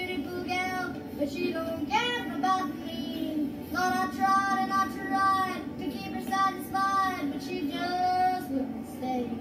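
A young boy yodeling a country song, his voice holding long notes and flipping in sudden leaps between low and high, with sliding notes between them. It comes through a TV speaker.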